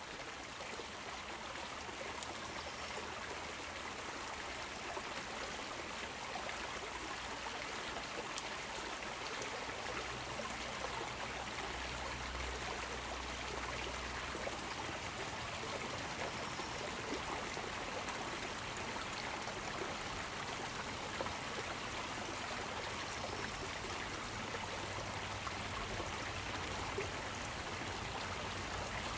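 A small river stream flowing and babbling over rocks, a steady rush of water with fine trickling detail.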